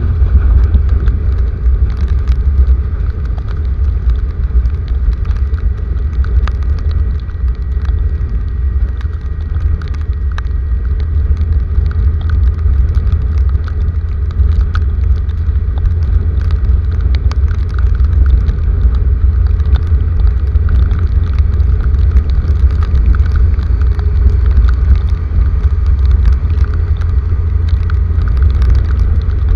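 Heavy rain falling steadily, with scattered drops striking close by, over a steady deep rumble.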